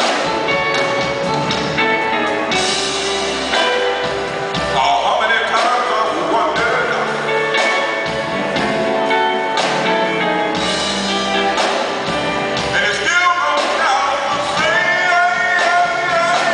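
Live smooth-jazz band music: a lead melody on a hollow-body electric jazz guitar over keyboards and drums.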